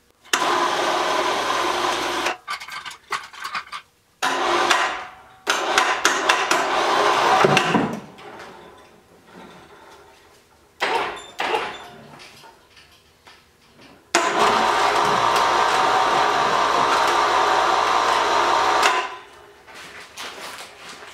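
Electric hoist on a gantry crane running in bursts as it lifts a lathe turret out of its crate: a steady motor whir that starts and stops abruptly each time the pendant button is pressed and released, with the longest run, about five seconds, near the end. Between runs there are a few light clanks and knocks.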